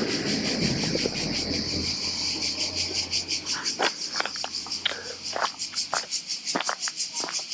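Cicadas singing: a high, rapidly pulsing buzz that carries on steadily, with a few sharp clicks scattered over it.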